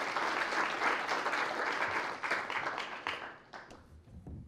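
Audience applauding, a dense patter of clapping that dies away a little over three seconds in, ending with a few scattered last claps.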